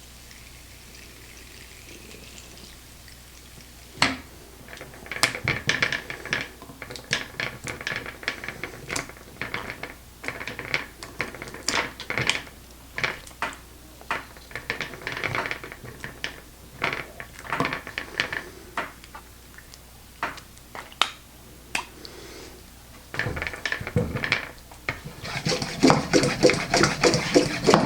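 A filled water balloon and the Pumponator pump's plastic tying tool being handled: a sharp knock about four seconds in, then irregular clicks, rattles and short squeaks, thickening near the end.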